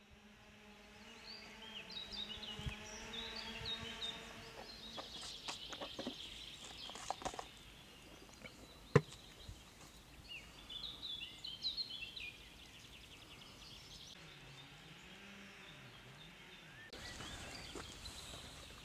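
Small birds chirping on and off, over a low steady hum that fades out about four seconds in. Scattered light clicks and knocks come from handling gear, with one sharp click about nine seconds in.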